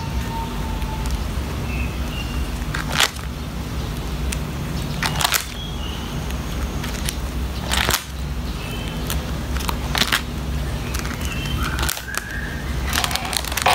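Clear plastic binder sleeves crackling as photocard binder pages are turned by hand, several crisp page flips a few seconds apart over a steady low hum.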